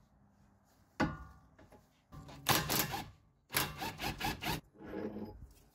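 A tool undoing the 21 mm suspension bolt that holds the sway bar link and front shock: a sharp metallic clack about a second in, then two bursts of rapid mechanical noise, the second about a second long.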